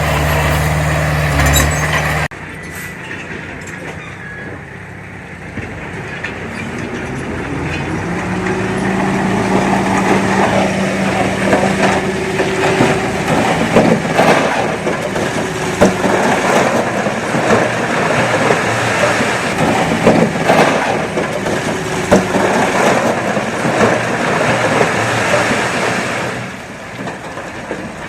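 Small crawler bulldozer's diesel engine working under load, its pitch climbing a few seconds in and holding, with a run of metallic clanks and rattles from the tracks.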